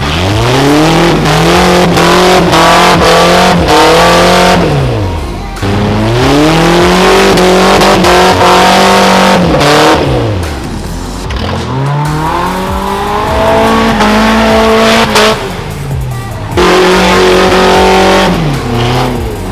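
Electronic music track built on a deep synth note that sweeps up, holds for several seconds and slides back down, repeating about every five seconds, with a sudden jump back in near the end.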